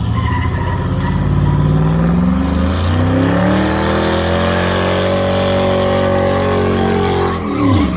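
Pickup truck's engine revving up steadily over several seconds and held at high revs in a burnout, its rear tyres spinning and smoking, then dropping back sharply near the end.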